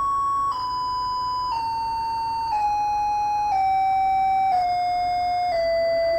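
Electronic tone generated by an Arduino, stepping down in pitch about once a second. It plays as a slow falling series of held beeps, one of the patterns of a homemade siren sketch.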